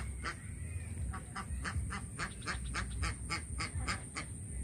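Laying ducks quacking in a rapid, continuous run of short calls, several a second.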